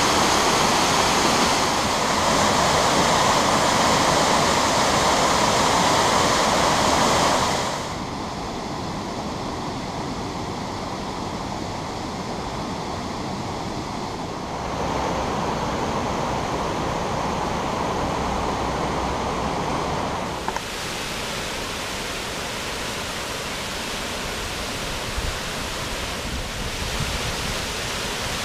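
Rushing roar of mountain waterfalls pouring over rock, a steady noise with no pitch. It drops abruptly to a quieter, duller rush about a quarter of the way in, rises again about halfway, and drops once more about two-thirds through.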